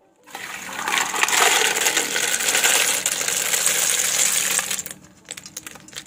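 Hot water and boiled freshwater snails poured from a wok into a plastic colander: a loud gush of water draining through starts just after the beginning. From about five seconds in, the snail shells clatter and clink into the colander as the last of them are tipped out.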